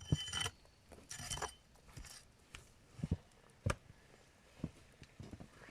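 Two short clinking rattles, then several separate dull thuds.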